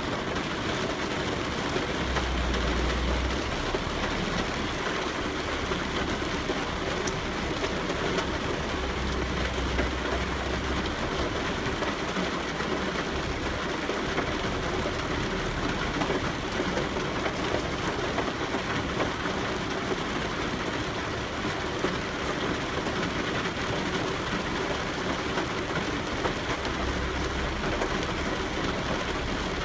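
Steady rain falling, an even hiss. A low rumble swells underneath it a few times.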